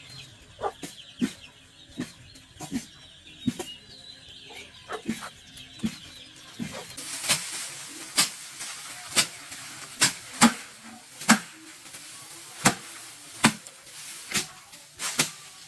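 Rhythmic sharp crunching strokes of hand-harvesting rice stalks, a little faster than one a second, growing louder about halfway through.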